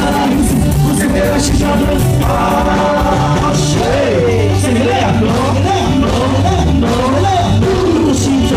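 Loud Comorian mbiwi dance music played live on a keyboard, with a singing voice over a steady beat and bass.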